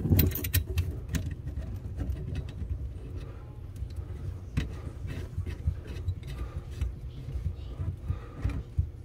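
Small metallic clicks and rattles of a braided stainless-steel faucet supply line and its fittings being handled as its coupling nut is fitted by hand onto the cold-water shutoff valve, over a low handling rumble. There is a quick run of clicks at the start, then occasional single clicks.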